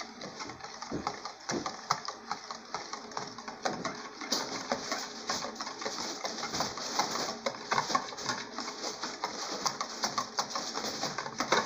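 Wire whisk beating a runny pudding mixture of eggs, condensed milk and milk in a plastic bowl, the tines rapidly clicking and scraping against the bowl with a wet sloshing underneath.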